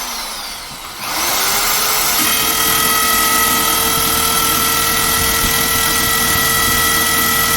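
Electric hammer drill switched on about a second in: the motor whines up to speed and runs steadily. It is set to hammer mode in reverse, the wrong setting, so the bit only jumps and makes no progress into the work.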